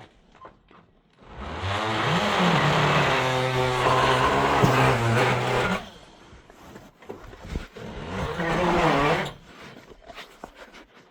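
Chainsaw revving up and running under load as it cuts into timber for about four seconds, then a second, shorter burst of cutting near the end.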